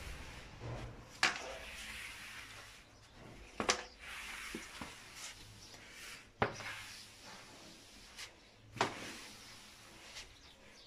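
Long-handled floor squeegee worked in strokes across a tiled floor, with a soft scraping between strokes and a short knock about every two and a half seconds, four in all.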